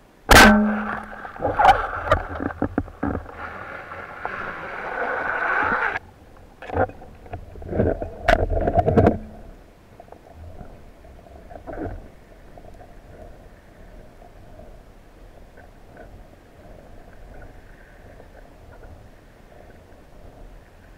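Underwater speargun shot: a sharp crack about a third of a second in, followed by several seconds of knocking and rattling, with a second loud burst around eight to nine seconds in, then only a faint underwater hiss.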